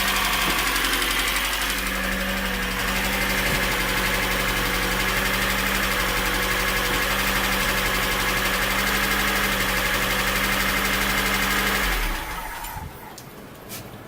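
VAZ-2105 four-cylinder engine idling steadily, then switched off about twelve seconds in. It runs with the timing-gear knock cured by a new small crankshaft sprocket; the light clatter left is from valves that need adjusting, which the owner calls nothing serious.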